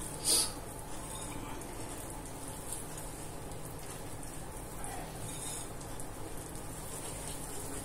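Wire whisk stirring thick cake batter, with flour being worked into the wet mix, in a glass bowl: a steady soft wet crackling and scraping, with a short sharp clink of the whisk near the start.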